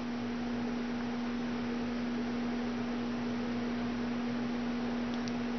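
Steady low electrical hum over a constant hiss: the background noise of the recording, with no other sound standing out.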